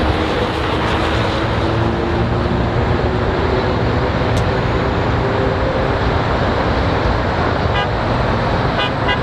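Steady, loud outdoor din of a large crowd and road traffic, with a few long, drawn-out horn tones over it.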